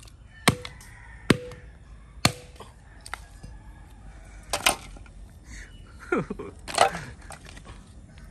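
A sledgehammer smashing lump charcoal on a concrete curb: three sharp blows in the first two and a half seconds, each with a short metallic ring, then rougher cracking and crunching in the second half as the charcoal pieces break and are handled.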